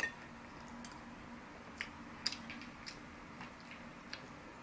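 A few faint, scattered clicks of chopsticks and a metal spoon against takeout soup bowls while eating.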